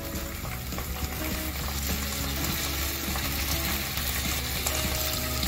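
Onion and green capsicum pieces coated in sauces sizzling steadily in hot oil in a non-stick wok, with a spatula stirring them.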